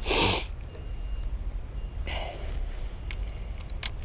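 A sharp breathy exhale close to the microphone, the loudest sound, then a softer breath about two seconds later and a couple of light clicks near the end, over a steady low rumble.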